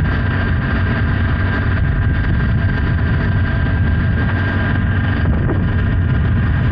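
Motorcycle on the move at a steady speed: the Honda Hornet 900's inline-four engine running evenly, mixed with heavy wind noise on the microphone.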